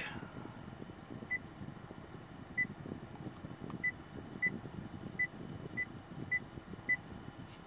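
10th-generation Honda Civic touchscreen head unit giving a short, high beep for each key press on its on-screen keyboard: eight beeps at uneven intervals, roughly one every half second to a second.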